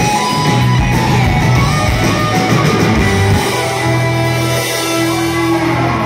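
Live rock band with electric guitar and drums playing loudly, with busy drum hits for the first three seconds. About three seconds in the band settles onto one held, ringing chord, the final chord of the song.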